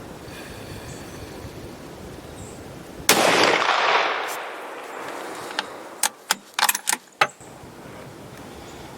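A single gunshot from a hunting firearm about three seconds in, its report fading away over a second or so, followed a few seconds later by a quick run of sharp clicks.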